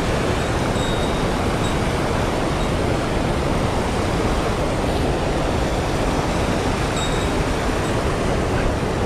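Mountain stream rushing over boulders in whitewater rapids: a loud, steady rush of water.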